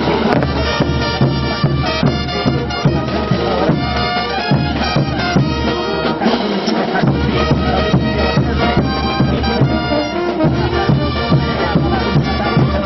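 Bolivian brass band playing festival dance music: massed brass carrying a melody over a steady beat of bass drums, snare drum and clashing hand cymbals.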